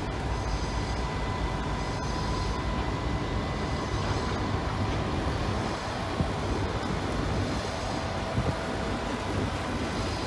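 Aurizon freight train's diesel locomotives rolling slowly past: steady engine rumble and wheel noise on the rails, with a faint steady whine over it.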